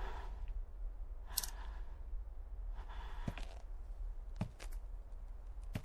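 Faint breathy sighs and a few soft clicks over a steady low hum.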